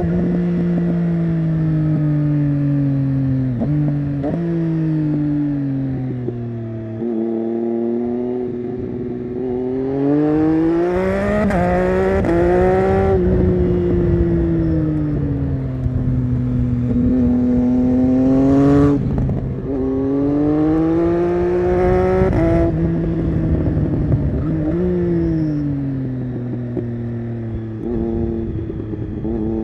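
Triumph Street Triple 675's inline three-cylinder engine through an SC-Project Conic exhaust, heard from the motorcycle as it is ridden. The engine pitch climbs under acceleration and drops back several times as the bike shifts and slows.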